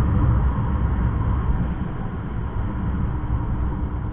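Motorcycle running steadily while riding along a road, with wind rushing over the microphone: mostly a low rumble that eases off slightly toward the end.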